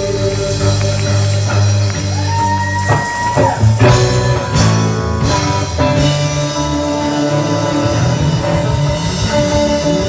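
Live band playing loud rock-style worship music: drum kit, electric guitars and bass guitar. A held note slides up in pitch about two seconds in, and cymbal crashes ring out near the middle.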